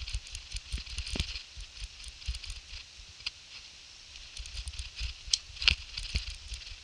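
Footsteps crunching and rustling through dry leaf litter and twigs, with irregular low thumps from the walking, body-worn camera. Two sharp snaps come a little over five seconds in.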